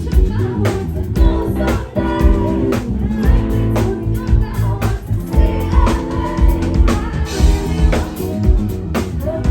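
A live band playing a song: guitar, bass and drum kit with a steady beat, and a voice singing.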